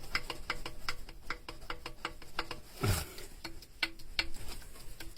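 A string of light metallic clicks, a few each second, from tools being worked on an engine's piston and cylinder, broken by a short low sound about three seconds in.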